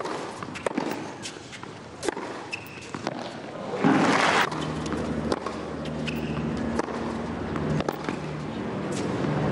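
Tennis ball being struck by rackets and bouncing on a hard court during a rally: a series of sharp, separate pops and clicks. A brief swell of crowd noise comes about four seconds in.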